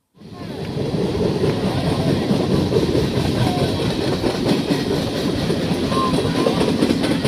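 Wind buffeting an outdoor phone microphone: a loud, rough, steady rumble that starts suddenly at the cut, with a few faint distant calls in it.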